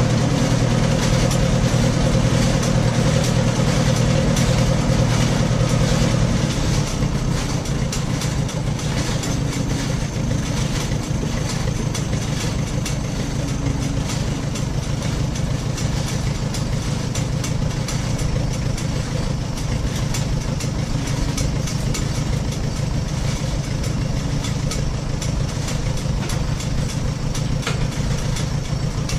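1941 Farmall H's four-cylinder engine running steadily, driving a PTO-powered Gehl corn chopper. The sound eases a little about six and a half seconds in, then holds steady.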